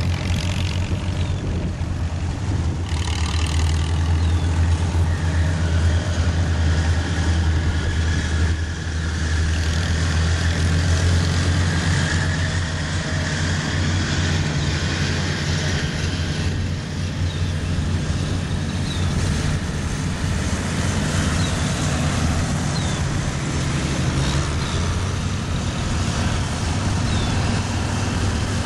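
Vintage farm tractor engines running steadily as the tractors drive past one after another, a continuous low hum.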